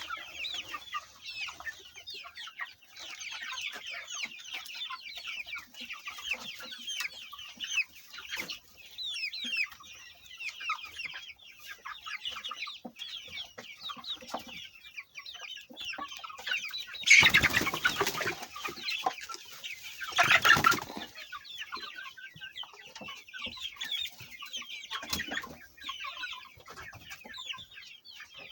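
A flock of chickens calling and clucking, many short falling calls overlapping throughout, with two louder noisy bursts about two thirds of the way through.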